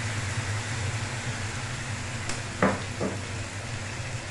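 Chicken, onion and ginger sizzling steadily in an aluminium wok as fish sauce is poured in, over a steady low hum. Two short knocks come about two and a half and three seconds in.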